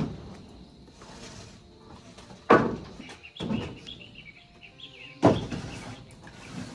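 Wooden boards being put down onto a pile: three loud knocks, about two and a half seconds apart. Birds chirp faintly in between.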